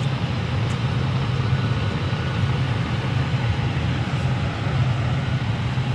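Ford F-150 pickup's engine running steadily at low revs, a low even hum, as the truck creeps forward at walking pace towing a fifth-wheel trailer.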